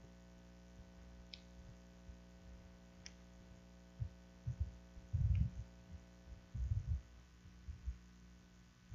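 Steady mains hum from the sound system with a few faint clicks, then a cluster of low muffled thumps about four to seven seconds in, from handling close to the altar microphone.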